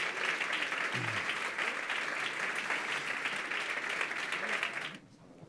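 Audience applauding, a dense even clapping that cuts off suddenly near the end.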